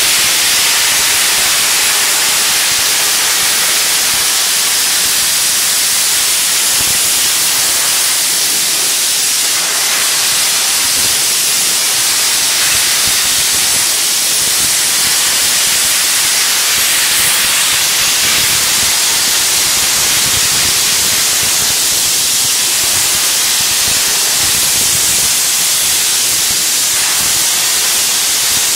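Vapor-blast nozzle spraying a jet of water-and-abrasive slurry driven by compressed air onto a metal table top: a steady, loud hiss.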